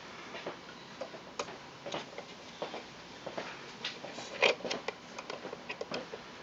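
A string of small sharp clicks and taps from working on the wooden cuckoo clock case and its movement, some in close pairs, with one louder knock about four and a half seconds in.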